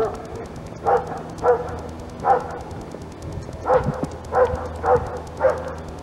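A dog barking in short single barks, seven in all, in two bursts with a pause of over a second between them.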